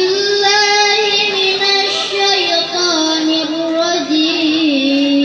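A boy qari chanting the Qur'an in the melodic tilawah style: one voice drawing out long, ornamented notes with turns and small slides, stepping down to a lower held note near the end.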